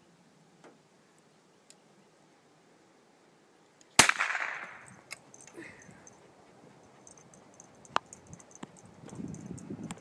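A single shot from a Savage Cub .22 bolt-action rifle about four seconds in, sharp and loud with a brief echoing tail. A second, much quieter sharp click comes about four seconds later.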